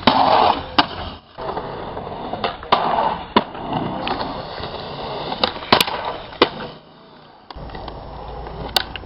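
Skateboard wheels rolling, broken by a string of sharp clacks from the board popping and landing; the rolling drops away briefly about seven seconds in.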